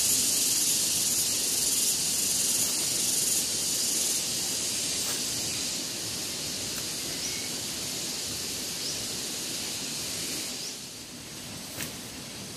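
Steady high-pitched hiss of outdoor riverside ambience, with a few faint short chirps over it. The hiss drops in level after about ten seconds, and a single sharp click comes near the end.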